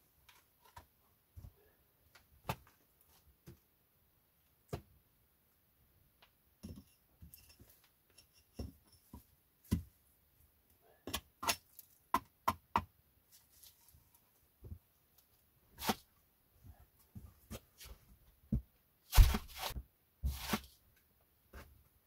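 Wooden knocks and clatter of split firewood being handled around a chopping block. The knocks are scattered at first and come thicker from about halfway through, with the loudest couple of thuds near the end.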